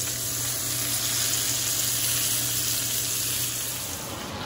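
Marinated lamb chops sizzling steadily in a frying pan on medium heat, with a low hum underneath that stops about four seconds in.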